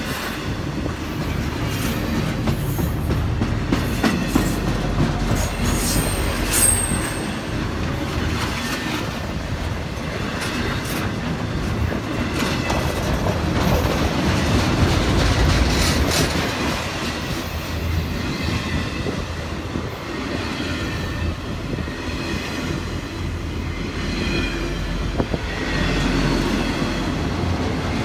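CSX intermodal freight train's cars rolling past, steel wheels clacking over the rail joints with faint squealing from the wheels and a brief high squeal about six seconds in.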